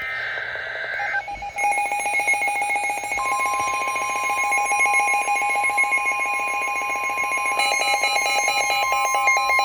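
Midland weather radios going off for a severe thunderstorm warning. A brief warbling burst of coded data tones comes first, then rapid pulsing alert beeps. A steady single warning tone starts about three seconds in, and a second radio's different beeping joins near the end.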